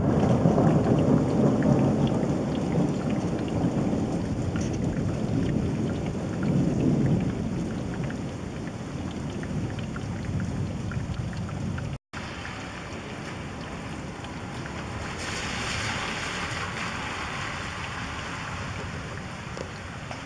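Rolling thunder rumbles low and slowly dies away over steady rain, swelling once more about seven seconds in. After a brief dropout about twelve seconds in, only the hiss of rain remains, growing brighter near the end.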